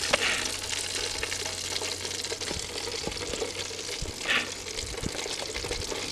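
Chicken deep-frying in hot oil, sizzling steadily, with a brief louder hiss about four seconds in.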